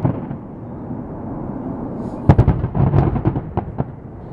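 Fireworks going off: a loud bang about two seconds in, followed by a quick run of smaller cracks and pops, over a steady low rumble.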